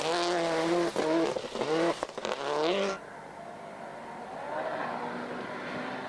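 Rally car engine revving hard, its pitch climbing and breaking off twice as if through gear changes. Just after three seconds it cuts abruptly to a quieter, muffled engine note that slowly rises.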